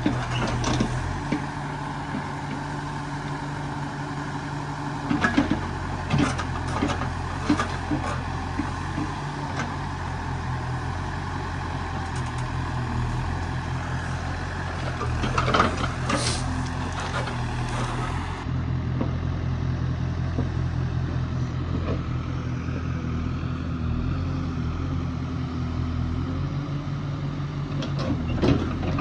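Diesel engine of a backhoe loader running steadily under work, with several sharp knocks and clanks a few seconds in and again past the middle.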